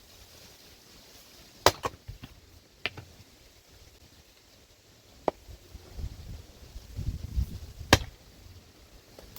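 Axe blows splitting firewood: a few sharp chops at uneven intervals, the two loudest about a second and a half in and near the end.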